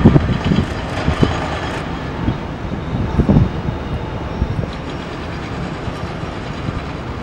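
Airbus A321 jet airliner landing: a steady low rumble of its engines, with wind buffeting the microphone now and then.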